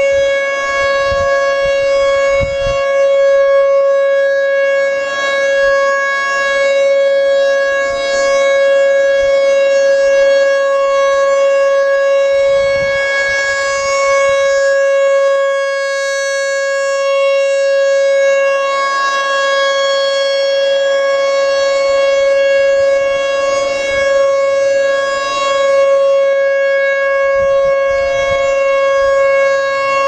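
American Signal T-128 rotating dual-tone outdoor warning siren sounding a steady tone for its weekly test. The pitch holds steady while the loudness slowly swells and fades as the horn sweeps around.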